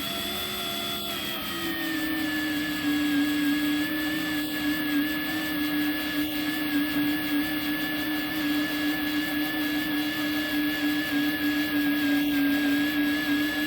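Electric drill running steadily as a larger bit bores into a broken steel fender bolt, chewing its way through the steel. About a second and a half in, the motor's pitch settles a little lower as the bit takes the load, then holds steady.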